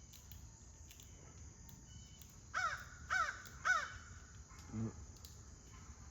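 Crow cawing three times in quick succession, about half a second apart, a couple of seconds in.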